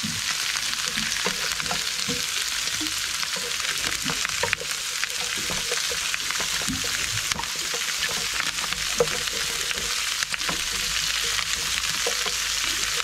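Prawns sizzling steadily in a frying pan while being stirred with a wooden spatula and fork, with small scrapes and clicks of the utensils against the pan.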